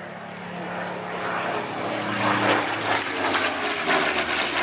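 Supermarine Spitfire Mk IX's Rolls-Royce Merlin V12 engine and propeller growing louder as the plane flies past, the engine note dropping in pitch about halfway through.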